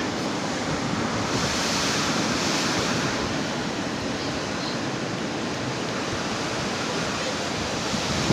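Storm wind with gusts up to about 120 km/h, a steady rushing that swells for a moment about two seconds in.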